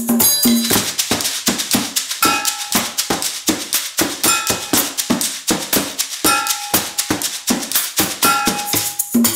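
A group of found-sound percussion instruments playing a steady, busy groove: a hand drum, a tambourine, sticks tapping a plastic tub, and shaken plastic bottles used as shakers. A short pitched ring sounds about every two seconds.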